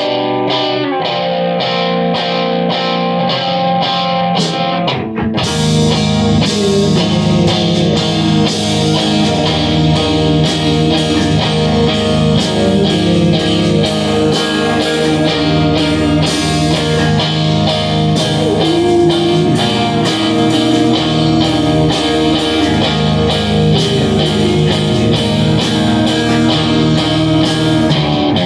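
Live rock band playing: electric guitar over a steady beat, with the full band coming in louder, drums and low end included, about five seconds in.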